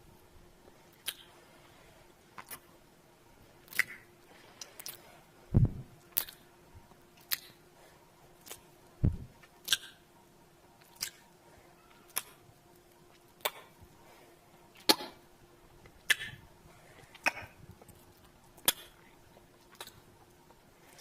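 Kissing sounds made with the lips close to the microphone: short, sharp lip smacks, one every second or so, two of them with a soft low thump.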